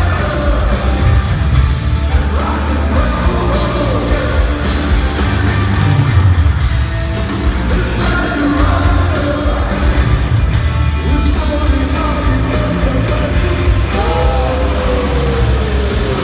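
Heavy rock band playing live in an arena, with a sung voice over heavy bass and drums. Near the end a long note slides down in pitch.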